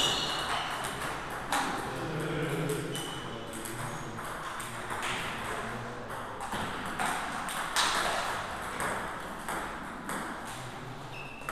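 Table tennis ball clicking off rubber-covered paddles and bouncing on the table in rallies. The sharp clicks come irregularly throughout, some from play at neighbouring tables.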